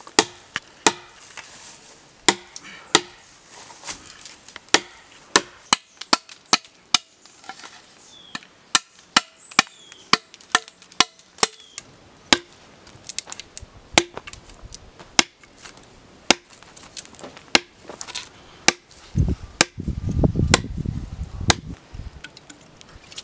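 Blade chopping green bamboo: a long, irregular series of sharp chopping strikes, roughly one or two a second. Near the end a low rumbling noise rises for about two seconds.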